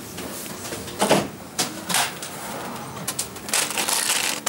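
Goods handled at a shop counter: a few sharp clacks of hard plastic, then a denser rustling near the end.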